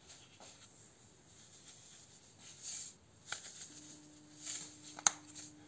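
Salt shaken from a plastic salt container into a bowl of cottage cheese: a few faint rattles and clicks of handling. A faint steady hum comes in a little past halfway.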